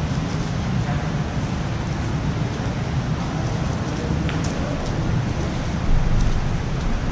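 Steady low rumble of room background noise, with faint irregular clicks of a 7x7 speedcube being turned by hand, and a low thump about six seconds in.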